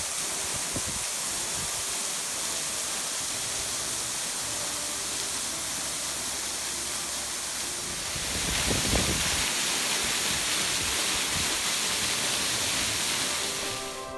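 Rushing water: a shallow stream running over pebbles, then a waterfall splashing down a rock face, louder from about eight seconds in.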